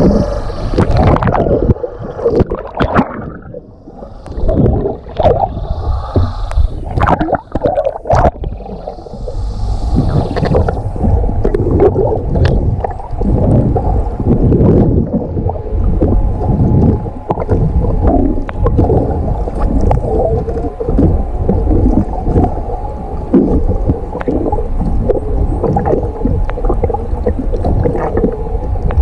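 Muffled underwater sound from a GoPro held under the water: water rushing and knocking against the camera housing in uneven surges, with a faint steady hum underneath.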